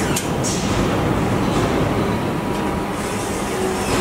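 Car body assembly line machinery running: a steady mechanical din from the robots and clamping fixtures, broken by a few short, sharp hisses.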